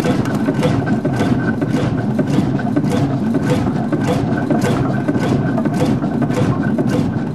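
Hundested 45 HP single-cylinder two-stroke hot-bulb semidiesel engine running slowly, with a regular, even beat of about two strokes a second.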